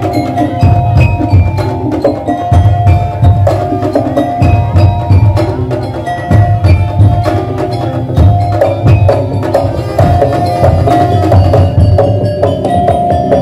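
Madurese daul percussion ensemble playing: fast, dense knocking percussion over heavy bass-drum beats, with a sustained melody line held above it.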